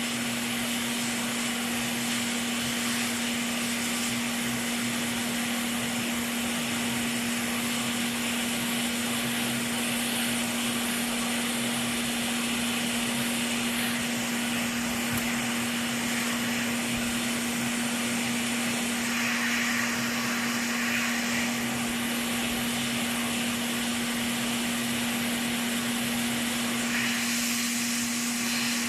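Steady blowing of a hot-air rework tool with a constant hum, heating the solder joints of an Xbox Series X HDMI port to desolder it.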